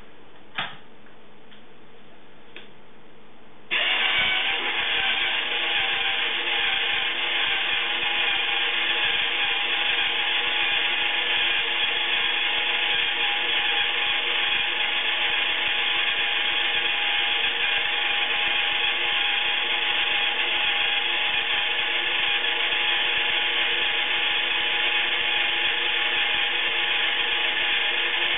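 Iriza plastic toy washing machine: a single sharp click about half a second in, then its small battery motor starts abruptly a few seconds later and runs steadily as a whirring hum while the drum turns.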